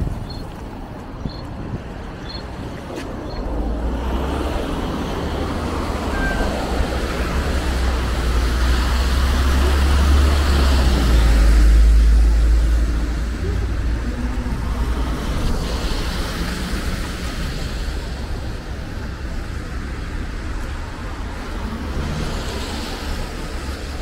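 Road traffic noise in a city street, with a heavy low rumble that builds to its loudest about halfway through, then eases off. A faint high beep repeats a few times in the first two seconds.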